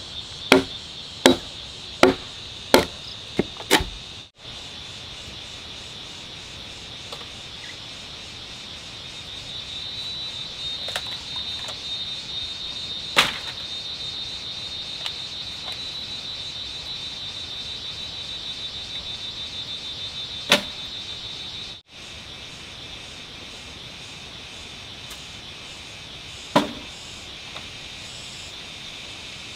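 A run of six sharp knocks about 0.7 s apart at the start, like chopping or hammering, then a steady high-pitched chirring of insects. Three more single knocks come later.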